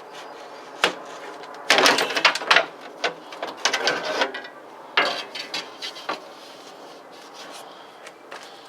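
VW Golf Mk4 door window glass being worked out of the door shell, knocking and scraping against the door frame and seals. A sharp knock about a second in, then a couple of seconds of scraping and rattling, and more knocks and rubbing around five to six seconds in.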